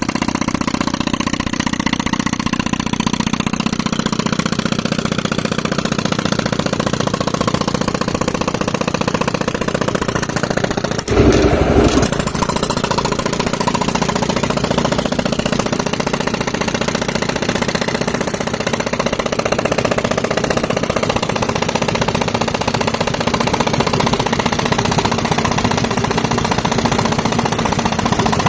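Tractor engine running steadily, with a short louder burst about eleven seconds in.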